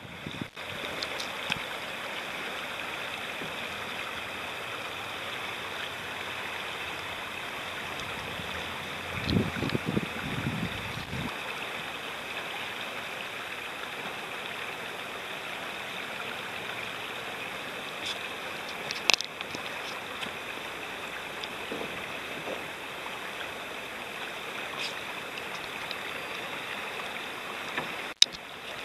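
Shallow river rapids rushing steadily over rocks. A brief low rumble comes about a third of the way through, and a single sharp click a little past the middle.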